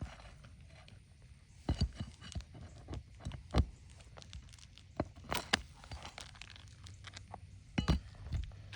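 Scattered clicks, scrapes and crunches of a pry tool working roofing nails out from under brittle old asphalt shingles, the shingle mat crackling and tearing as it is lifted.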